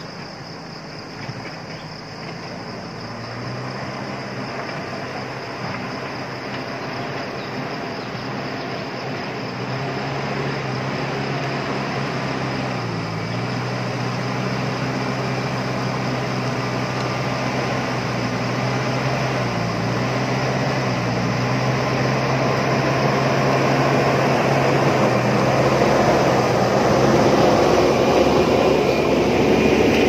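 JCB backhoe loader's diesel engine running as the machine drives closer, growing steadily louder, its engine note dipping briefly twice. A rougher, noisier sound builds near the end as it comes alongside.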